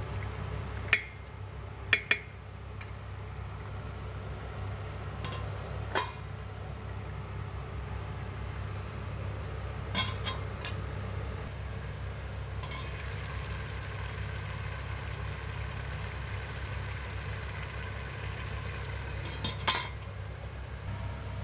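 Spoon stirring rice and lentils in a stainless steel pot, knocking against the pot a few times in the first seconds, then a stainless steel lid set on the pot with a clink about ten seconds in and handled again with a clatter near the end. A steady low hum runs underneath.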